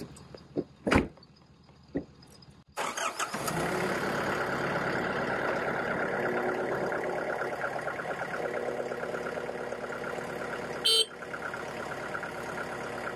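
After a few light knocks, a Yanmar compact tractor's diesel engine starts up about three seconds in and runs steadily. Near the end a short horn honk sounds, the signal to begin the tow.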